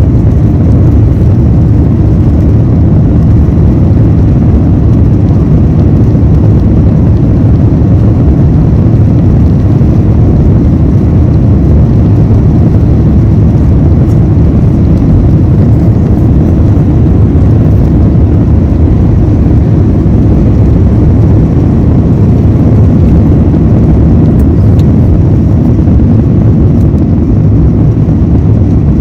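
Airbus A350-900 cabin noise during takeoff: its Rolls-Royce Trent XWB engines at high power with rushing air, heard from inside the cabin as a loud, steady, deep noise.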